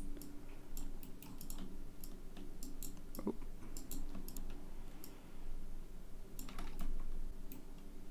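Computer keyboard keys and mouse buttons clicking at irregular intervals, over a faint steady low hum.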